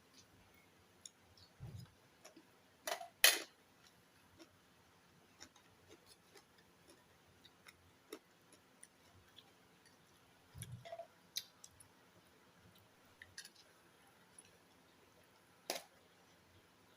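Scattered small clicks and taps of a meal being eaten, with a sharper click about three seconds in and a couple of soft low thumps.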